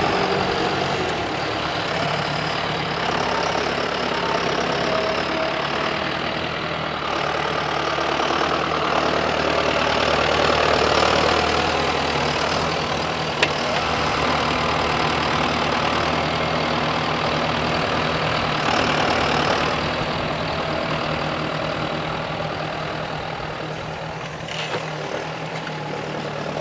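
John Deere 6420S tractor's four-cylinder diesel engine running steadily under load while pulling a five-furrow plough.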